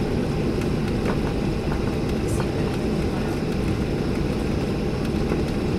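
Steady low rumble inside the cabin of a Boeing 737-800 taxiing, its CFM56 engines at low taxi thrust, with a few faint clicks.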